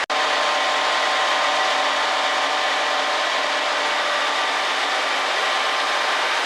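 MAN Roland Cromoman 70 web offset printing press running at speed, a steady mechanical whir and hiss of rollers and the paper web with faint steady whining tones in it.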